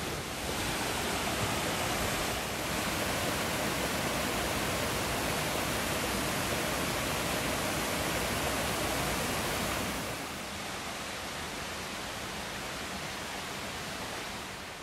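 Creek water rushing in a steady, even wash of noise that drops a little in level about ten seconds in.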